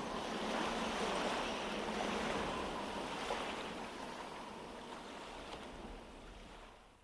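Ocean surf sound effect closing out a song: an even wash of breaking waves that slowly fades away to silence near the end.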